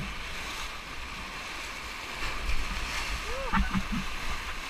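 Rushing, churning whitewater of river rapids heard from a raft, with paddles splashing and an uneven low rumble on the microphone.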